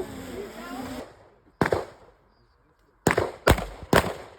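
Gunshots on a shooting range: one sharp shot about a second and a half in, then after a pause three shots in quick succession, about half a second apart, each ringing out briefly.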